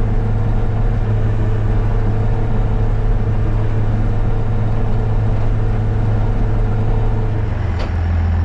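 Vehicle engine running steadily. About three-quarters of the way in its note drops lower, with a short click as it changes.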